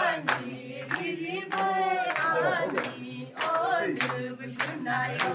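A group of women singing together in unison, with hand claps keeping a steady beat of about one and a half claps a second.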